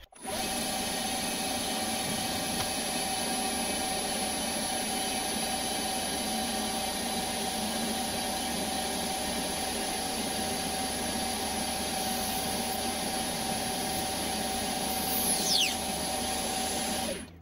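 Small CNC lathe running, its spindle turning a plastic bar at constant speed while a parting tool cuts into it, giving a steady machine whine with a fixed high tone. About fifteen seconds in, a brief high squeal falls sharply in pitch.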